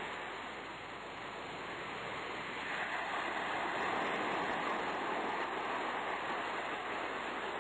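Sea surf: an even rush of waves that eases slightly about a second in, then swells again and holds from about three seconds in.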